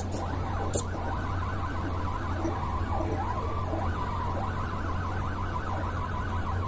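Two NEMA 17 stepper motors of an Arduino GRBL pen plotter whining as they drive the pen carriage, the pitch sliding up and down constantly with each change of speed and direction, over a steady low hum. A short sharp click a little under a second in.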